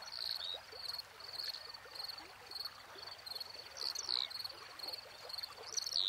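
Outdoor wildlife ambience: a faint, high, rhythmic chirping about twice a second, with a few brief higher chirps over it.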